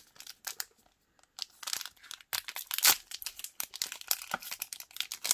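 Foil booster pack wrapper crinkling as it is handled and torn open, a run of irregular crackles with the loudest about three seconds in.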